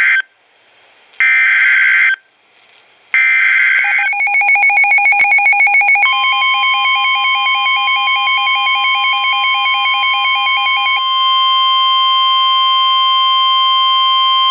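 Emergency Alert System SAME header: three short bursts of screeching digital data tones. Then comes rapid pulsing two-tone beeping, and about six seconds in a steady single-pitched warning alarm tone starts and holds on to the end.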